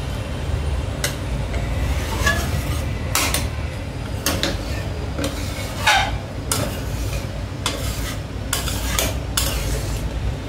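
Flat metal spatula stirring boiling dal in an aluminium kadai. It scrapes the pan and clinks against the rim about ten times at irregular intervals, over a steady low rumble.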